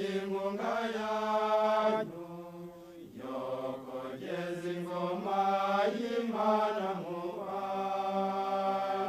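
Voices singing a slow chant in long held notes that step from pitch to pitch, with a short break about two seconds in.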